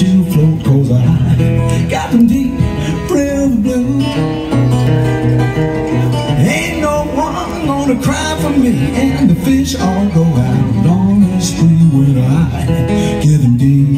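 Solo acoustic guitar fingerpicked in a country-blues style, a thumbed alternating bass under the melody, with a man singing over it.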